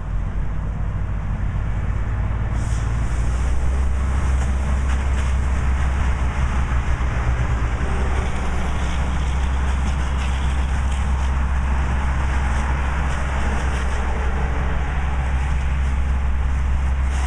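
Steady low rumble of heavy vehicle engines running, under a constant hiss.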